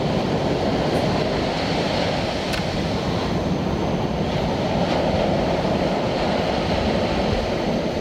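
Steady rumble of ocean surf breaking on the beach, with a couple of faint ticks.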